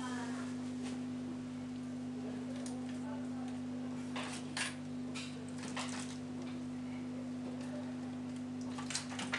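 A steady electrical hum from bench equipment, with a handful of short clicks and rustles as small chips in their plastic packaging are handled.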